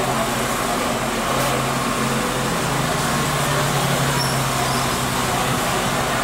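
Steady street ambience: an even hiss with a low, steady motor hum underneath and no distinct events.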